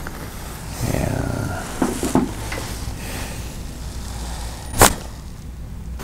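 Chiropractic neck adjustment: one sharp, loud crack of the patient's neck joints about five seconds in, after a few softer sounds of the head being positioned.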